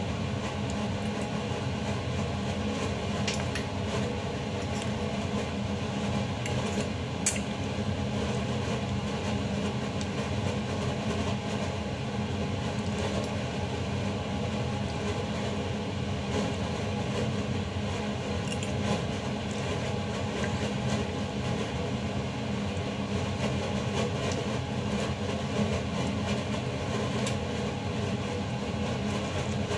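Steady mechanical hum of a room appliance such as a fan or air conditioner, unchanging throughout, with a few faint clinks of a steel spoon and fork against a stainless steel pot.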